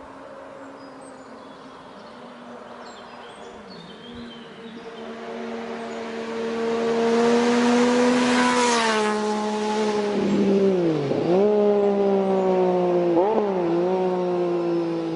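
A motorcycle engine approaches and grows louder, its pitch falling as it passes about nine seconds in. The engine note then dips and comes back up twice, as the throttle is eased and opened again. Faint bird chirps are heard in the first few seconds.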